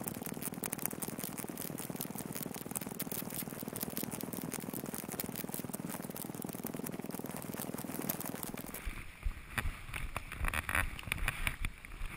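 Steady rustling noise, then, from about nine seconds in, irregular crunching and scraping of skis and poles in deep snow during an uphill hike.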